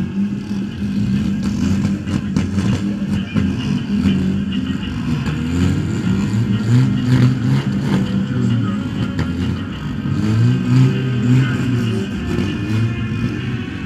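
Car and quad engines running and revving as they circle slowly, their pitch rising and falling over and over.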